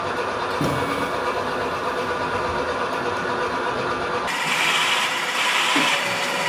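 Otter 40 DTF printer running its printhead test: a steady mechanical whir as the film feeds forward. About four seconds in, a brighter, slightly louder whirring starts as the printhead carriage travels across printing the test strips.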